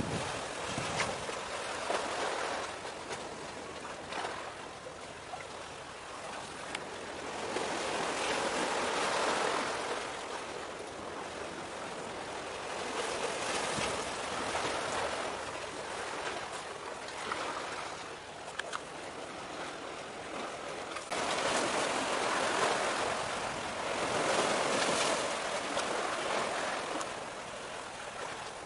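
Sea waves washing against the shore, the wash swelling and fading every few seconds.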